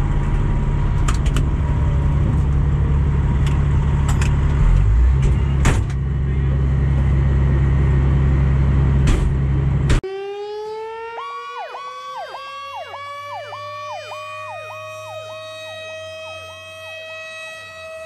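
Fire truck diesel engine idling steadily with a few sharp clicks, heard from the cab of a 2003 Pierce Dash. About ten seconds in it cuts to a fire apparatus siren: one wail rising slowly in pitch, overlaid by a fast repeating yelp.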